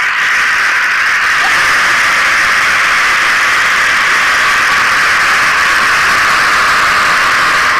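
Steady, hissy roar of a huge crowd screaming and shouting as pairs of racing bullocks gallop down the track.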